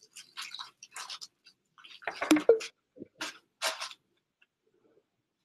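Irregular scratchy rustling and clicking noises, with a louder knock about two seconds in, then near quiet for the last second and a half.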